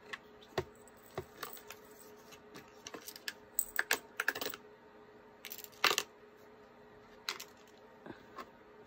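Light clicks and taps of small items being handled and set down in a small box, with a quick run of clicks about four seconds in and a louder tap near six seconds.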